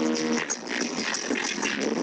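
Dance music played loud over a sonido mobile DJ sound system, heard thin with little bass. A held chord stops about half a second in, and the track goes on.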